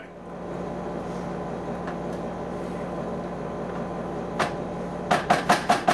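Steady low hum and even noise. Near the end, a quick run of sharp strokes, about six a second, as a wooden spoon stirs thick curry in a stainless steel pot.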